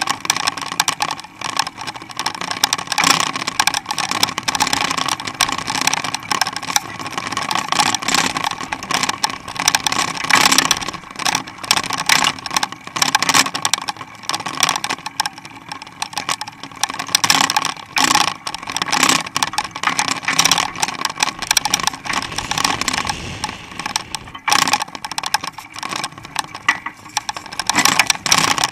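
Constant rattling and clatter over road noise from a mountain bike riding on pavement, heard through a camera mounted on the bike.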